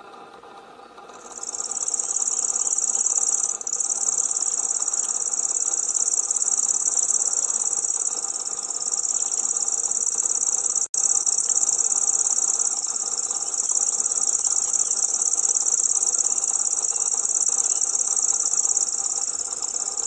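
Common grasshopper warbler reeling: one long, steady, very high trill held for almost twenty seconds, starting about a second in, with a brief catch near four seconds and a split-second gap near eleven.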